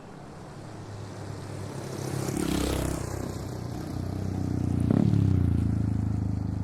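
An engine running, growing louder, with its pitch rising briefly twice, about two and a half and five seconds in.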